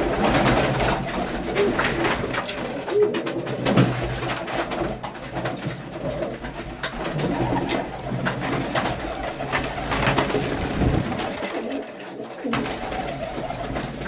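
Domestic pigeons cooing in a loft, several birds overlapping continuously, with scattered short clicks and rustles.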